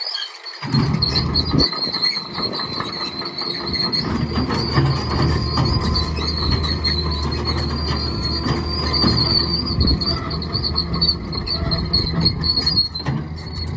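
Kobelco SK200SRLC excavator working, its diesel engine running under load with a steady, high, wavering metallic squeal, typical of steel tracks and undercarriage squealing as the machine moves. The squeal stops about a second before the end.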